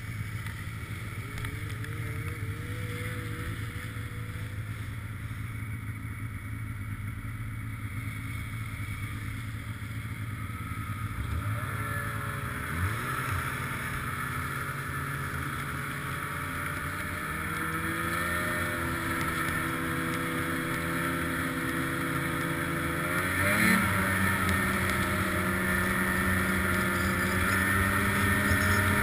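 Snowmobile engine running, lower and steady at first, then revving up about a third of the way in and holding a higher pitch as the sled gets under way, with another climb in pitch a little over three-quarters of the way through.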